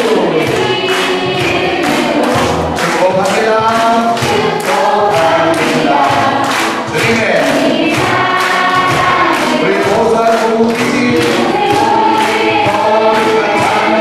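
A crowd singing a Korean praise song together over backing music, with hand-clapping in time with the beat.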